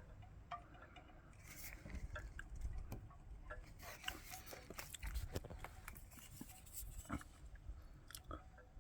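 Faint scattered clicks and light scrapes of hands working on a scooter's wiring connector while it is being cleaned.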